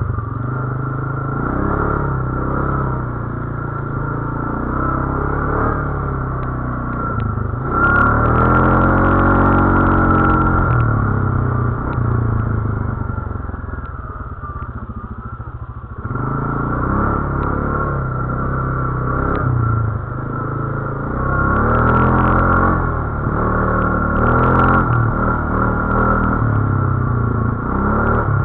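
GOES 520 Max ATV engine running under changing throttle, revving up and falling back in pitch about a third of the way in and again in several pulls near the three-quarter mark, with a steady high whine throughout.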